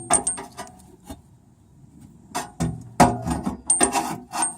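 Irregular metal knocks and scrapes as a replacement shock absorber is worked into place on a car, with a quieter gap in the middle.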